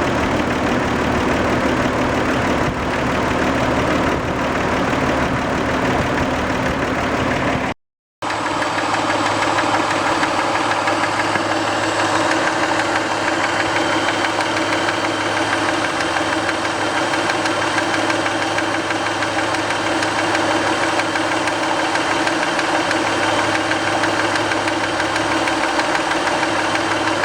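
1990 Toyota Camry's 2VZ-FE V6 engine running steadily with a knock, the knock that shows up once this engine is warm. A short break about a third of the way in is followed by the engine running again with a somewhat different tone. The owner's best guess at the cause is sludge or varnish stuck on a valve shim or bucket.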